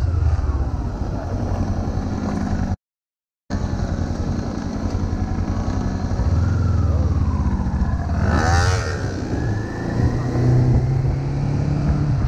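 Motorcycle engine running at low road speed, recorded on the rider's own bike, with gentle changes in revs. The sound drops out for under a second about 3 s in, and a short noisy burst with sweeping pitch comes about 8 s in.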